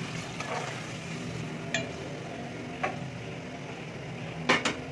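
A metal spoon stirring added water into chicken curry in an aluminium pot, clinking against the pot a few times, with two sharp knocks near the end, over a steady low hum.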